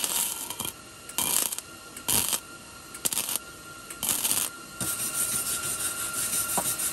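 Flux-core wire-feed welder arc crackling and sizzling as a bead is laid on steel tubing, in six bursts: five short ones, then a longer run of about two and a half seconds near the end.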